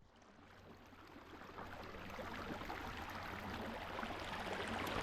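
Creek water running over rocks, fading in from near silence and growing steadily louder.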